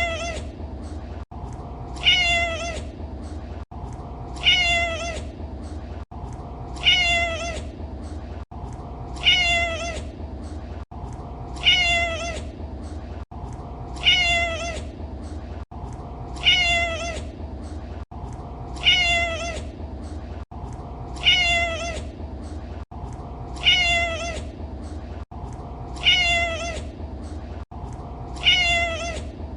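A domestic cat meowing: the same short meow, falling slightly in pitch, repeats about every two and a half seconds, identical each time, as a looped recording. A brief gap just before each meow marks the loop seam, over a steady low background noise.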